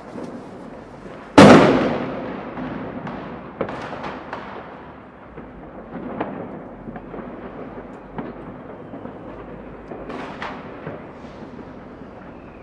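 New Year's Eve fireworks going off: one loud, close bang about a second and a half in that echoes away over a couple of seconds, then scattered smaller bangs and pops over a constant background of more distant fireworks.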